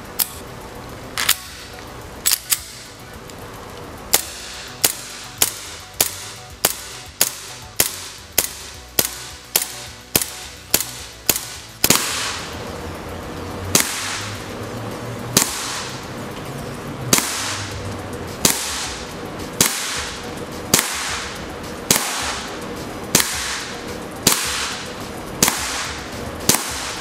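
Gas blowback airsoft pistol (Sig Sauer P226/P229 replica) firing, each shot a sharp crack. Two single shots come first, then a quick string of about two shots a second, then steadier shots about one a second.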